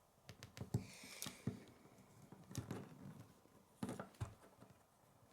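Faint, scattered clicks and taps of plastic K'nex pieces being handled and fitted together, about half a dozen spread over several seconds, with a brief rustle about a second in.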